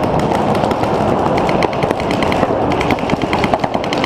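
Several paintball markers firing rapid strings of shots at once, a dense run of sharp pops with no break.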